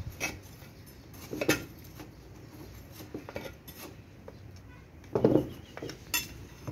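A hooked metal hand tool digging and scraping through dry, lumpy potting soil in a cement pot, loosening it. The sound is irregular scrapes and knocks with a metallic clink, loudest about one and a half seconds in and again just after five seconds.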